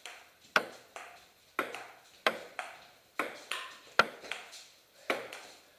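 Table tennis rally: the ball clicking sharply off the table and the bats, about one or two clicks a second.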